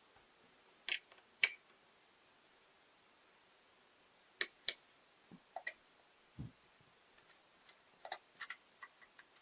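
Sparse small clicks and taps of a ThinkPad T420 laptop's parts being handled during disassembly: a few sharp clicks, one duller knock partway through and a quick run of light clicks near the end.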